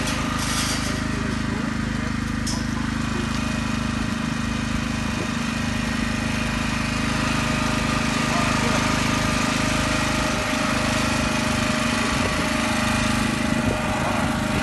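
Motor of the shearing machine running with a steady, even hum while a llama is shorn.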